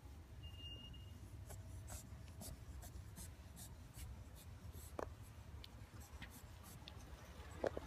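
Faint scratchy rustling with scattered light crinkly clicks, from a hand stroking a cat's fur and a cat nosing at a plastic shopping bag, over a steady low rumble.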